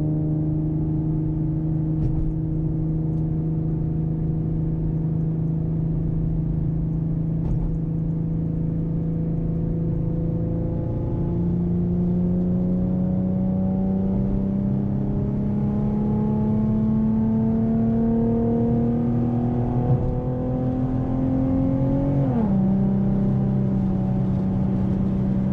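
A 2014 Ford Mustang's engine and exhaust droning steadily under way. From about halfway its pitch climbs slowly as the car gathers speed, then drops sharply a few seconds before the end and settles at a steady drone.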